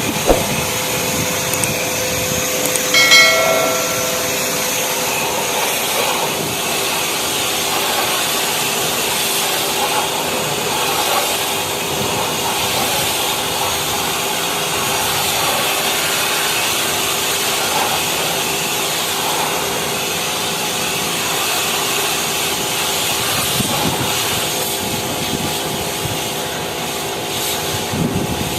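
Steady hissing spray of water with a steady machine hum underneath, typical of cleaning an air-conditioner condenser coil. A brief pitched squeal sounds about three seconds in.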